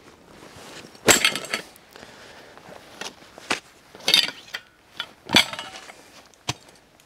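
Tent poles of a Dutch army tent clattering and clinking as the packed tent is set down and unpacked on forest ground. A loud clatter comes about a second in, then a scattering of sharper clinks.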